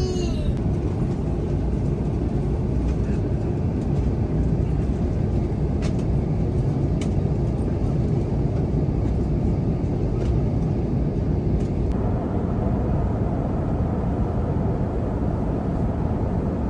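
Airbus A350 airliner cabin noise: a steady low rumble with a few faint clicks.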